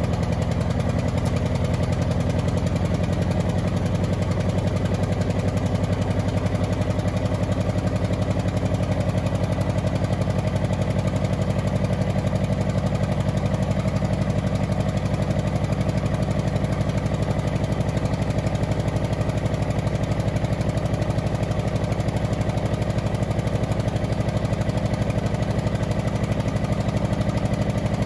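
Old lorry's diesel engine, first started after about twenty years, running away: it runs on its own at a steady, unchanging speed.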